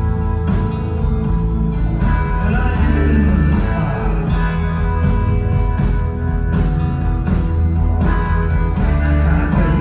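Audience recording of a live band playing a blues-rock song: guitar over drums keeping a steady beat, with the sound of a concert hall.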